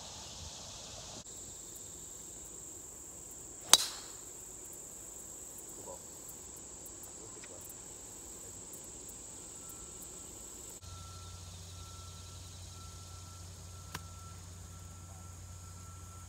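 A golf tee shot: one sharp crack of the club striking the ball a little under four seconds in, over a steady high drone of insects. In the last few seconds a low hum runs under a short beep repeating about every two-thirds of a second, like a vehicle's reversing alarm.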